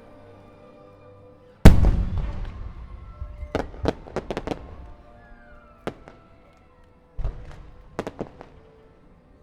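Aerial firework shells bursting over faint music: a heavy boom about a second and a half in that dies away slowly, a quick run of sharp cracks, then a second boom with a few more cracks near the end.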